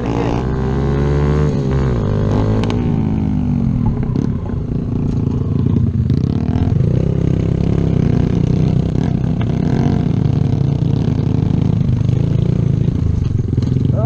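Kawasaki Z125's 125cc single-cylinder engine running under the rider. Its pitch falls over the first few seconds as the bike slows, then settles into a steady low, rough engine note as it rides across grass and dirt.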